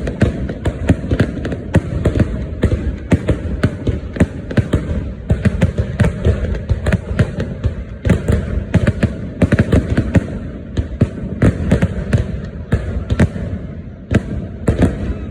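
Fireworks going off in quick succession: dense, irregular bangs, several a second, over a continuous low rumble.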